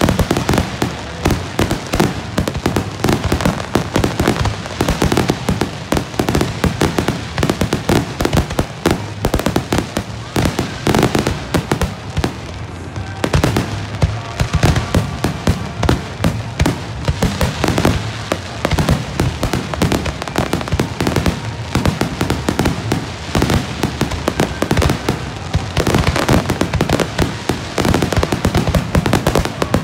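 Aerial fireworks shells bursting in a rapid, continuous barrage of bangs and crackles, thinning briefly about halfway through.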